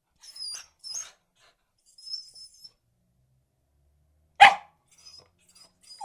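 Beagle giving a few short, high-pitched whines, then one loud bark about four and a half seconds in, followed by faint high whimpers.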